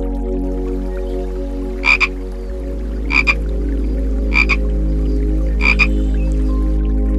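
A frog calling four times, each call a quick double croak, about one every 1.3 seconds, over soft sustained background music.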